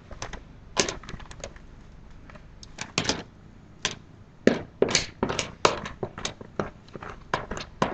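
Kitchen utensils clicking and knocking irregularly, sparse at first and coming more quickly in the second half.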